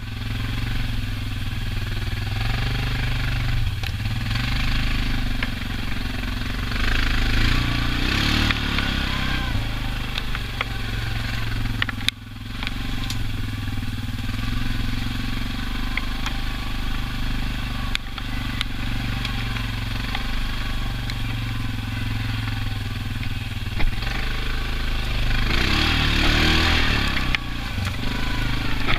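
Quad bike (ATV) engine running steadily under way, heard from on board the machine, its revs rising and falling a few times, with a brief drop about twelve seconds in and a few sharp knocks.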